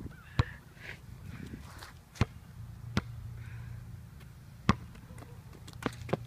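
A basketball bouncing on concrete as it is dribbled: about six sharp smacks at uneven intervals, two of them close together near the end.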